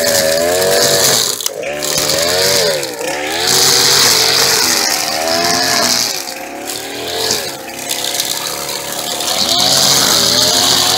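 String trimmer's engine running, its pitch rising and falling over and over as it is revved while cutting weeds, with a high hiss that swells and fades.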